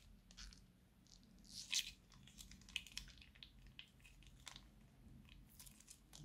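Plastic piping bag crinkling as it is squeezed and wrung, with soft squishes of slime pressed out of its tip. Quiet, irregular crackles, the loudest a little under two seconds in.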